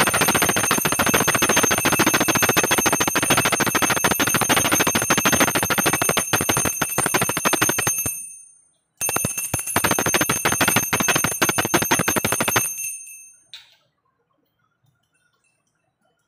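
Brass puja hand bell (ghanti) rung rapidly and continuously during the offering. It rings for about eight seconds, stops for a moment, rings again for a few seconds and then dies away.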